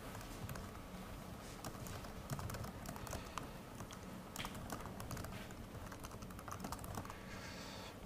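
Faint, irregular clicking of computer keyboard keys as commands are typed into a terminal.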